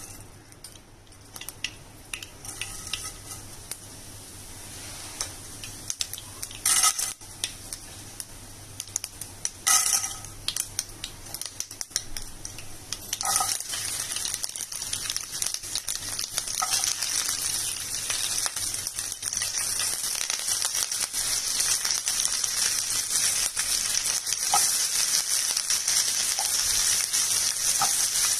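Hot oil sizzling in a nonstick kadai as a tempering fries, with mustard seeds popping as many small crackles. A few brief louder bursts come in the first half, and from about halfway a steady frying hiss builds and grows louder toward the end.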